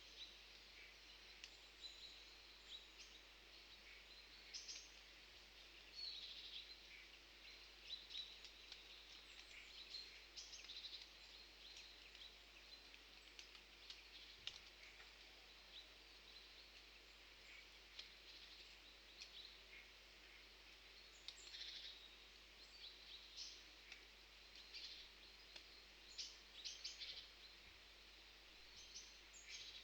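Faint, scattered short high-pitched chirps of birds over a quiet outdoor background hiss.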